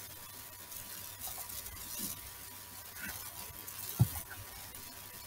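Quiet room tone with a faint steady hiss, a few soft clicks, and a sharper knock about four seconds in.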